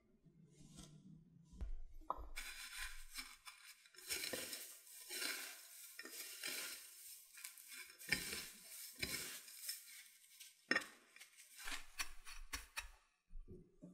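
Dry breadcrumbs rustling and crunching under the hands as a potato-cube-coated corn dog is rolled and pressed through a tray of them, in repeated scraping strokes from about two seconds in. Before that, softer handling of the potato cubes on the skewer.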